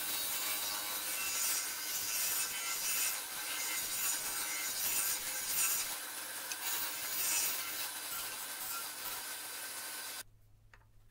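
Bench disc sander's spinning abrasive disc sanding the end of a wooden strip round: a rough hiss that swells and eases as the wood is pressed on, over a faint steady motor hum. It cuts off abruptly near the end.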